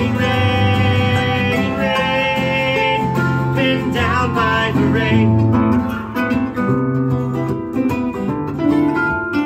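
Live acoustic folk music: a harp and an acoustic guitar playing together, plucked notes changing about once a second.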